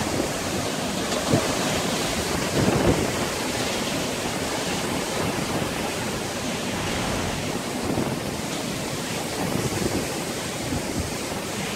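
Strong bomb-cyclone wind gusting steadily through trees, with the gusts buffeting the phone's microphone.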